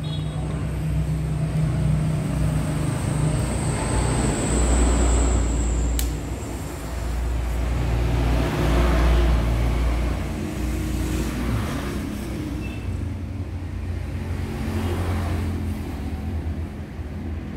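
Passing motor vehicles: a continuous engine and traffic rumble that swells and fades twice as vehicles go by, with a single faint click about six seconds in.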